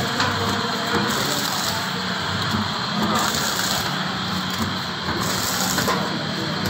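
Automatic powder packing machine running steadily as it forms, fills and seals detergent sachets, a continuous mechanical clatter with a pattern that repeats every couple of seconds.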